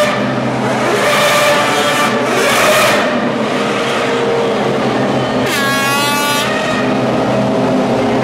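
Several Formula One cars' 2.4-litre V8 engines running on the starting grid, with the revs rising and falling. About five and a half seconds in, one engine's whine drops sharply in pitch.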